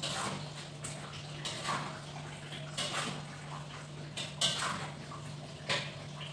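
A cooking utensil scraping and clinking in a pan on a gas stove during stirring: about eight short separate knocks and scrapes over a steady low hum.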